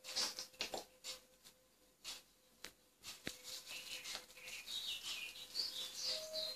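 African grey parrot chirping softly: a few scattered clicks, then from about three seconds in a run of quick, wavering high chirps and squeaks.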